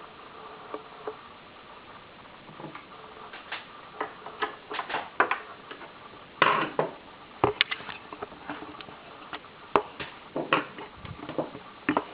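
Irregular small clicks, taps and knocks of hand work on a bench, over a steady low hiss.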